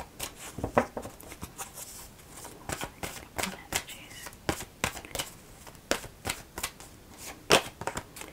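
A deck of tarot cards being shuffled by hand: a run of crisp, irregular card snaps and flicks.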